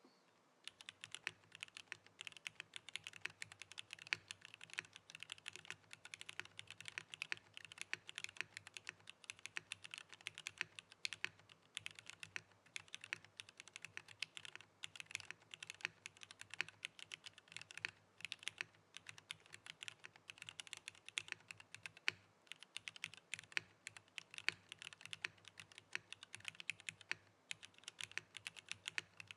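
Typing on a custom mechanical keyboard with factory-lubed Cherry MX Black MX2A linear switches, a carbon fibre plate and GMK keycaps: a fast, continuous stream of key clacks with short pauses.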